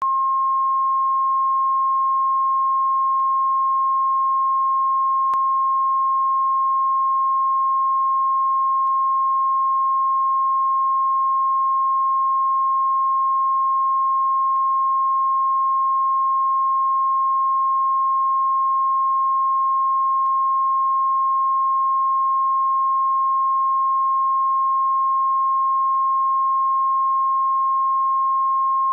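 Steady 1 kHz reference tone that runs with colour bars, a single unbroken pure tone at constant level. It is the line-up tone used to set audio levels before a programme.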